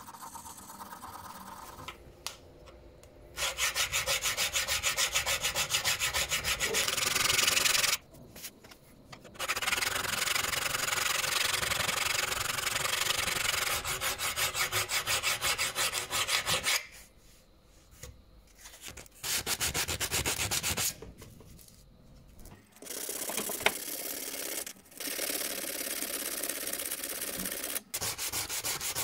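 Rapid back-and-forth strokes of a hand file and abrasive across the steel blade of an old pair of tailor's scissors, scraping metal. The scraping comes in five runs of a few seconds each, with short pauses between them.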